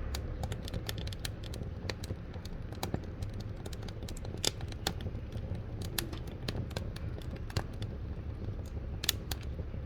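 Wood fire burning in a wood-fired cookstove, crackling with irregular sharp pops over a steady low rumble; a couple of louder snaps stand out about halfway through and near the end.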